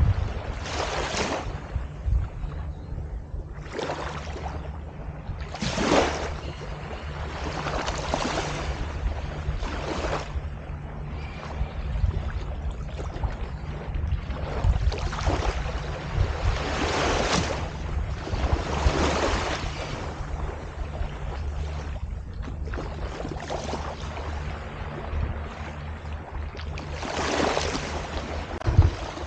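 Waves washing in repeated swells every couple of seconds, over a steady low engine hum.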